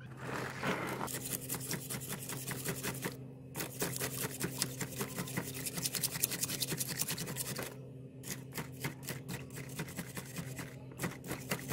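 Hand-held steel wire brush scrubbing the wet, rust-soaked steel needle-nose pliers, rapid scraping strokes that pause briefly about three seconds in and thin out to slower, sparser strokes after about eight seconds, loosening the rust after the soak. A steady low hum runs underneath.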